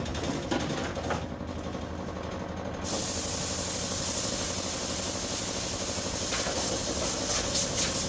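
Hand-held electric power tool sanding a camper shell: the motor runs with a steady hum, and about three seconds in the abrasive presses onto the shell and a louder, harsh sanding hiss takes over, with a few sharper scrapes near the end.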